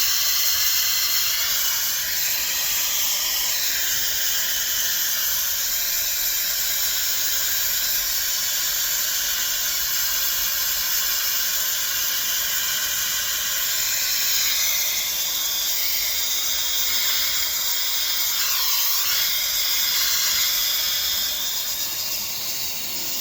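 Hairdryer running steadily, a continuous hiss of blowing air used to push and dry the poured acrylic paint.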